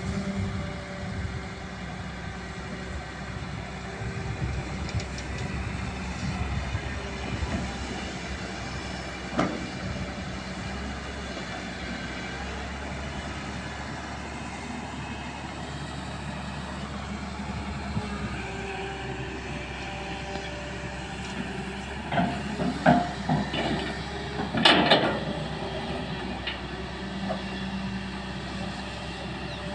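Hyundai long-reach crawler excavator's diesel engine running steadily under digging load. There is a single clunk about a third of the way in, and a cluster of louder clunks and scrapes from the bucket and arm near the end.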